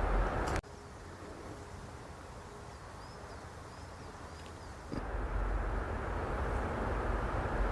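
Steady rumbling outdoor noise that cuts off abruptly to a quieter stretch with a few faint high chirps, then comes back suddenly a few seconds later.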